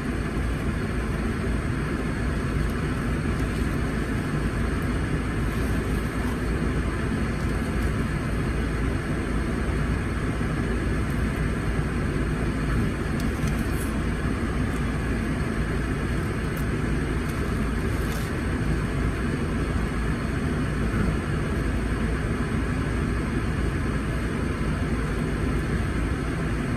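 Steady low hum and rush inside a parked car's cabin, with a few faint ticks.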